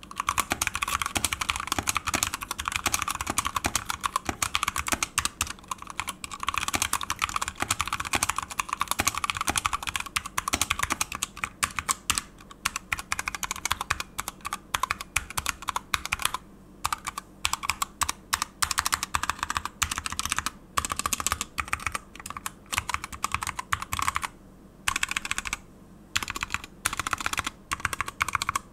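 Typing on an Apollo61 60% mechanical keyboard with Gateron switches and PBT keycaps: rapid, continuous key clacks, breaking from about halfway into bursts with short pauses between them.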